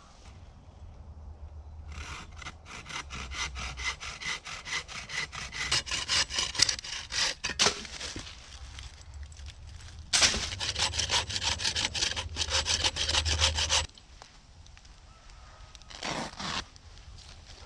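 Bow saw cutting through wood with quick, even back-and-forth strokes. There are two bouts: the first builds up over about six seconds, then after a short pause a second, louder bout stops abruptly.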